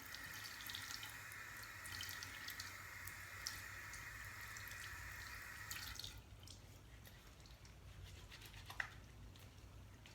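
Water running from a tap onto a bar of soap, spattering, for about six seconds, then shut off. After it comes quieter wet clicking as the soap is worked in the hands, with one short squeak near the end.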